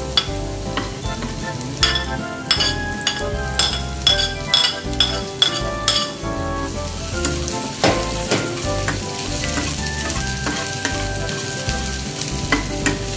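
Chopped garlic and onion sizzling in hot oil in a small metal pan. Metal utensils clink and scrape against the pan in a quick run of sharp knocks from about two to six seconds in, with a few more near the end as the onion is stirred.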